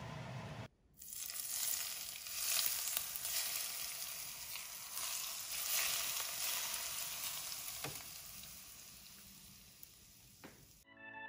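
Hot oil poured over minced garlic and chili flakes, sizzling and crackling, swelling twice and then dying away near the end.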